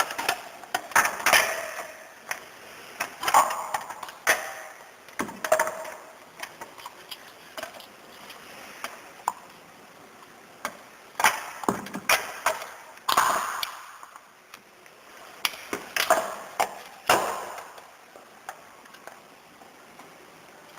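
Irregular clicks, knocks and short scrapes of small parts being handled by hand, as a device is taken apart or put together.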